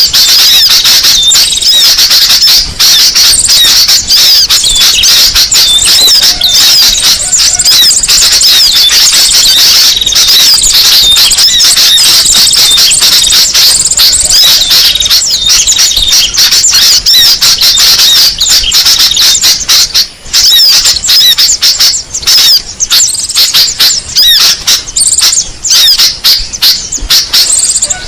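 Small birds chirping and twittering in a dense, continuous stream of rapid high-pitched notes, with a few brief breaks near the end. It is a bird-lure (pikat) call recording meant to draw in small songbirds.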